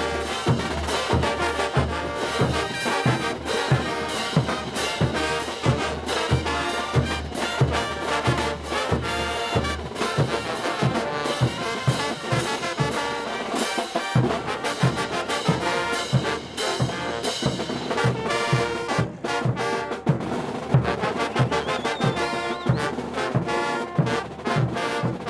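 Brass band playing morenada music: trumpets and trombones over a steady drum beat.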